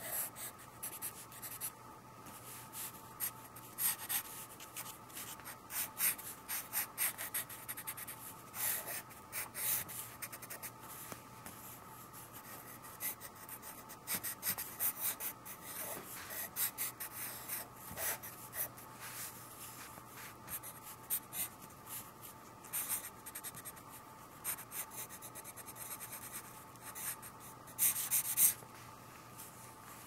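Pencil scratching across paper in quick, irregular sketching strokes, with a denser, louder run of strokes near the end.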